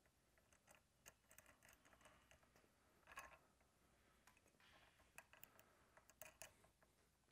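Faint, irregular small metallic clicks and taps as steel nylock nuts are handled and spun by hand onto the threaded ends of a U-bolt, with a slightly louder cluster of clicks about three seconds in.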